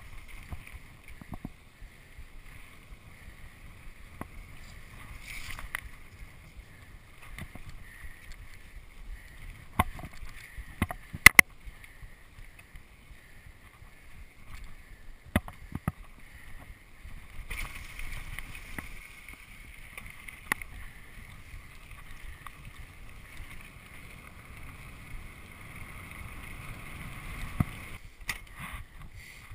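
Mountain bike riding down a dirt singletrack: a steady rumble of knobby tyres on packed dirt and rock, broken by sharp rattles and knocks from the bike over bumps, the loudest a cluster a little after ten seconds in.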